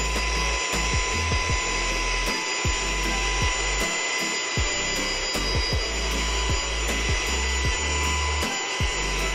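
Saker cordless handheld mini vacuum with a brushless motor running at a steady high whine while sucking up a small pile of dust and grit from a hard floor.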